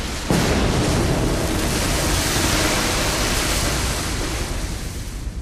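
Sound effect of a submarine breaching the sea surface after an emergency blow: a loud rush of surging water and spray that starts sharply just after the beginning and slowly fades near the end.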